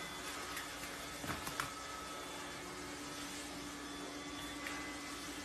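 Quiet room background with a steady low hum, and two or three faint clicks a little over a second in.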